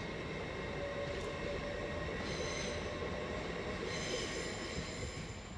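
A pair of Class 37 diesel locomotives running slowly past, engines going, with high-pitched wheel squeal rising out of the rumble about two seconds in and again for the last second and a half.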